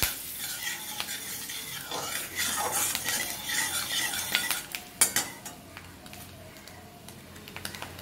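Steel spatula scraping and stirring in a steel wok through sizzling melted butter and crushed garlic, with a sharp clink of metal on metal about five seconds in. After the clink the stirring stops and only a quieter sizzle goes on.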